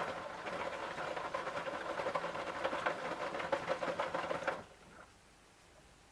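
Samsung Eco Bubble washing machine's drum motor turning the drum during the wash: a whine that rises in pitch as it starts, then holds with a fast rattling tick, and stops about four and a half seconds in.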